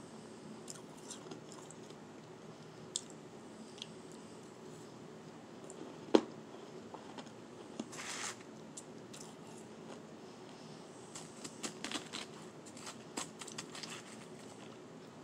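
Powdery shaved ice being bitten and chewed, heard close up: sparse soft crunches and clicks, one sharp crunch about six seconds in, and a run of crunches near the end.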